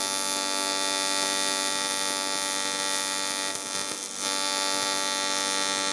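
Buzz of an R-Tech TIG261 AC/DC inverter TIG welder's arc in AC mode, welding an oil-contaminated cast aluminium sump. It is a steady, evenly pitched buzz, with a brief dip about four seconds in as the arc dims.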